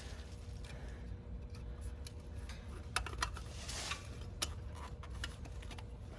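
A few sharp little clicks and taps, starting about halfway through, over a low steady rumble: small parts of an outdoor heat pump unit being handled and fitted back together by hand.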